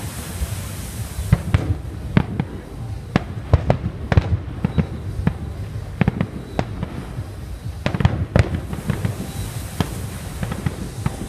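Fireworks going off: sharp bangs and pops at irregular intervals, several a second at times, over a continuous low rumble. A high hiss rises at the start and again near the end.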